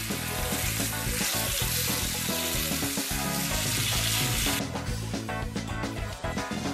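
Pork belly slices and shiitake mushrooms sizzling as they fry in a frying pan while being turned with tongs, over background music. The sizzling cuts off about four and a half seconds in, leaving the music.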